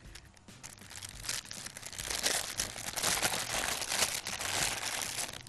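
A thin plastic bag filled with rice stuffing crinkling and rustling as gloved hands twist and squeeze it into a cone. The crinkling grows louder about a second in and carries on until near the end.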